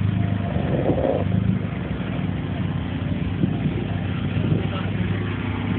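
Car engine idling steadily with an even, low hum.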